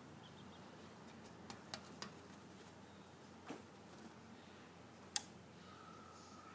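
Quail chicks moving about in shredded-paper bedding in a brooder: a few scattered sharp ticks and taps over a faint hiss, the loudest about five seconds in.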